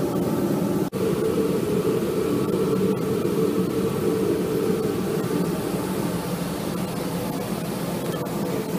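Steady drone of a ventilation blower, such as a laser cutter's exhaust fan, running continuously, with a very brief dropout about a second in.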